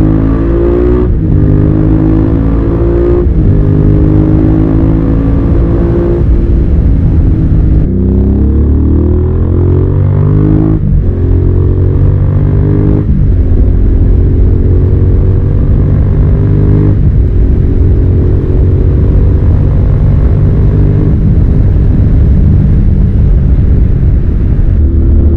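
Suzuki SV650's 645 cc V-twin accelerating hard through the gears. The engine note climbs in pitch, then drops with a short break at each upshift, about half a dozen times.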